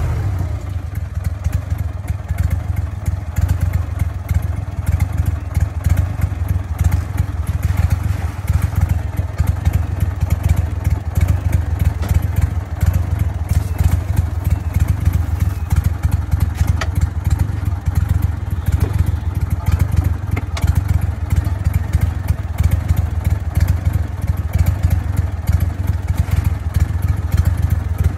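A crawfish boat's small engine running steadily at low speed, with occasional light clatter from wire-mesh crawfish traps being handled and emptied onto the metal sorting table.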